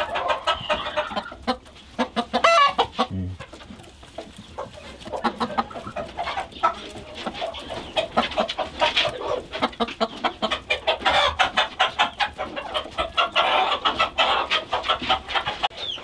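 Many chickens clucking at once, a dense, continuous chatter of short calls.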